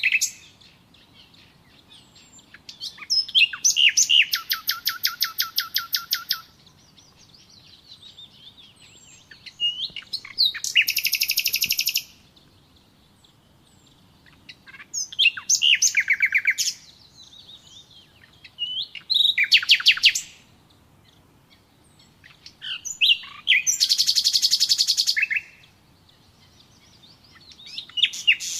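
A songbird singing. About five short songs come at intervals of roughly five seconds, each a few slurred high notes running into a rapid trill, and another song begins near the end.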